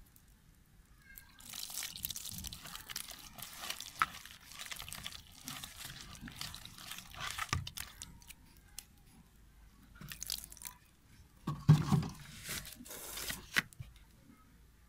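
A hand mixing cauliflower florets into a wet flour batter in a plastic bowl: irregular wet, crunchy mixing sounds that come and go in stretches, with a louder moment about twelve seconds in.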